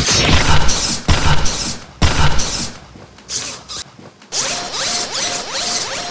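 Hobby servo motors of a homemade Arduino haircutting robot whirring and grinding in short irregular bursts as they swing a pair of scissors. From about four seconds in, a steadier buzz with repeating rises and falls in pitch.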